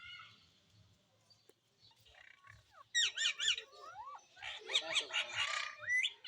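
Pet parrot chirping and chattering: a quick run of falling chirps about three seconds in, then a burst of chatter and a rising call near the end.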